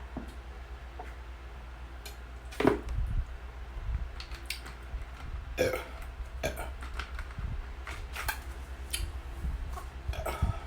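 A person burping a few times into a close microphone after drinking carbonated water. The loudest burp comes about two and a half seconds in and falls in pitch, with a second about three seconds later. Short mouth clicks and crackles come in between.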